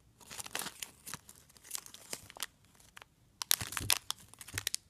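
Clear cellophane packaging bag around a squishy toy crinkling as it is handled, in irregular crackles that grow louder and denser about three and a half seconds in.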